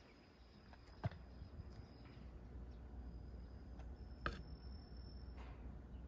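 Quiet room tone with a low hum and a faint high whine that comes and goes, broken by a few soft clicks. The loudest click comes about four seconds in.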